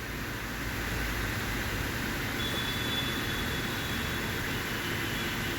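Steady hiss of background noise, with a faint, thin high tone for about two seconds in the middle.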